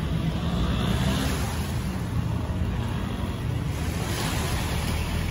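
Small waves washing against the shore, with wind rumbling on the microphone.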